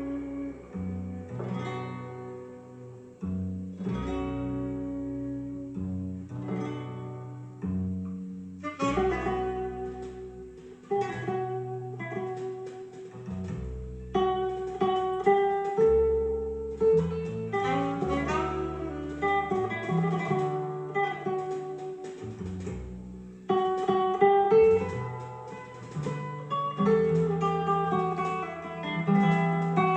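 Guitar music played back through a YL Acoustic five-way horn loudspeaker system: plucked notes that ring and fade over a low bass line.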